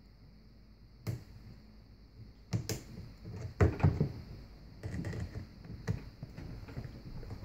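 Scattered sharp clicks and knocks, with handling rustle, as hose-clamp pliers work a spring hose clamp onto a dishwasher's corrugated plastic drain hose.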